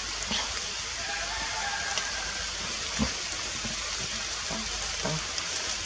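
Rain falling on forest leaves as an even, steady hiss with scattered patter of drops, and a single soft knock about three seconds in.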